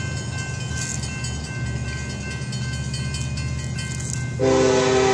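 Low steady rumble of an approaching train's locomotive, then its horn starts blowing loudly about four seconds in, several notes sounding together as a chord.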